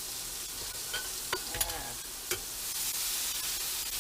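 Diced vegetables and spices sizzling as they stir-fry in a hot soup pot, with a stirring utensil clicking and scraping against the pot a few times.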